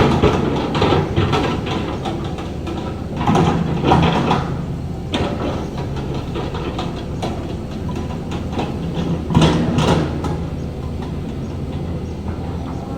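Diesel engine of heavy earthmoving equipment running steadily under load, with metallic clanking and clatter a few times, loudest about 4 and 9.5 seconds in.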